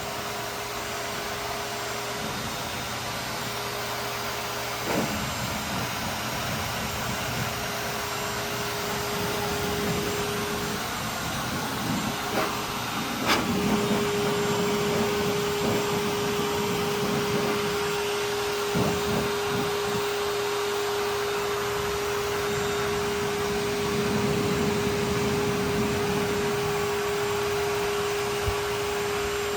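Hair dryer blowing steadily while drying a puppy's coat. Its hum drops out for a few seconds about a third of the way in and comes back after a click.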